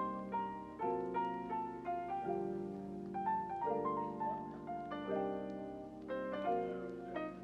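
Background music: a soft piano melody over held chords that change about once a second.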